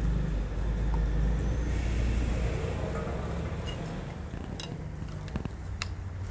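A slotted metal spoon lifting blanched spinach out of hot water and knocking against a steel bowl, with a couple of sharp clinks near the end. Under it is a low rumble that fades away about halfway through.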